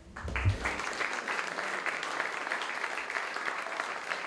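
A small audience applauding steadily, starting with a low thump just as the clapping begins.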